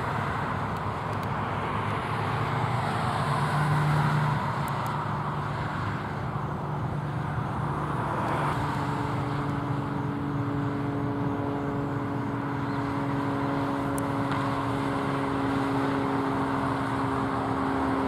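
Steady road-traffic noise from nearby roads, with a vehicle engine hum that comes in about halfway through and holds steady.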